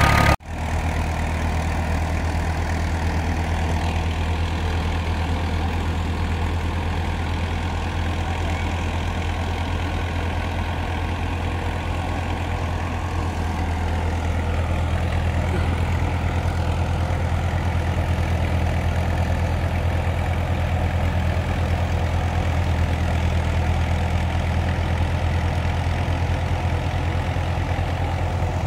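Tractor diesel engine running steadily with an even low drone. About 13 to 14 seconds in, its pitch steps slightly lower and then holds.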